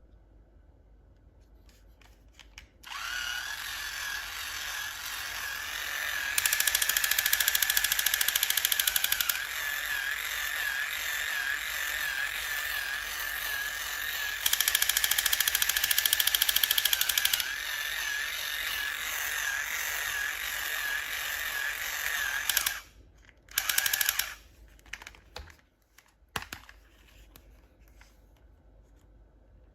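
A small motor whining steadily, louder for two stretches of about three seconds each, stopping suddenly after about twenty seconds, then a few short buzzes.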